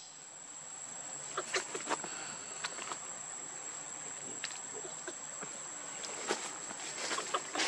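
A steady high insect whine, with scattered light clicks and crackles, most of them around two seconds in and again near the end, from the rustle of dry leaves and grass.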